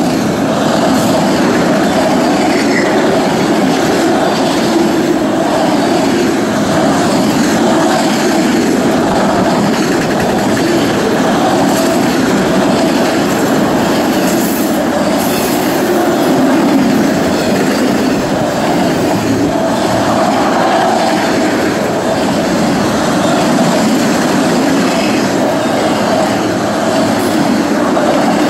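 Autorack freight cars rolling past at close range: a steady, loud rolling rumble of steel wheels on rail, with no breaks in it.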